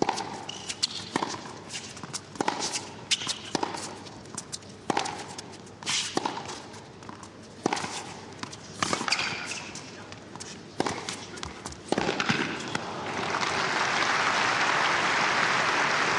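Tennis rally: rackets strike the ball back and forth about once a second, each hit a sharp pop. About three-quarters of the way in, the point ends and the crowd breaks into applause that swells and holds.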